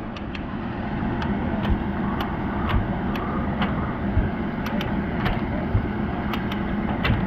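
A steady engine drone from construction machinery, with scattered sharp clicks and knocks of hand work on metal fittings.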